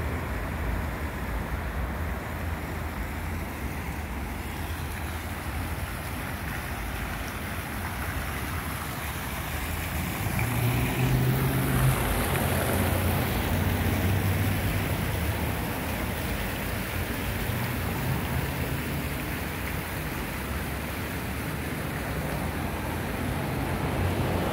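Road traffic on a busy city street: a steady rumble of engines and tyres, swelling as a vehicle passes about halfway through.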